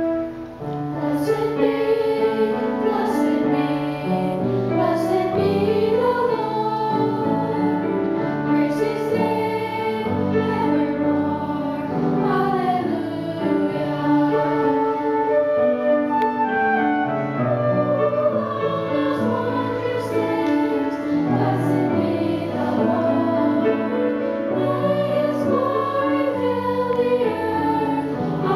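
Children's and teenagers' choir singing together with piano accompaniment, holding long notes.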